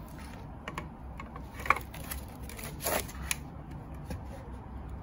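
Handling noises as an LED ring light and its cable are lifted out of foam packing in a cardboard box: a few scattered clicks, knocks and rustles, the sharpest a little under two seconds in.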